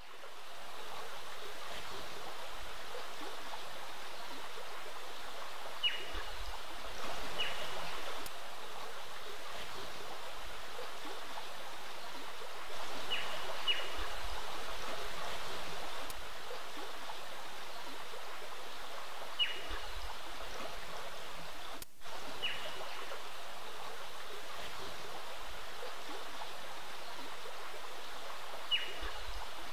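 A creek running steadily, a constant rushing wash of water. Over it, a short high chirp that falls in pitch repeats every few seconds, often twice in quick succession. The water sound briefly cuts out about two-thirds of the way through.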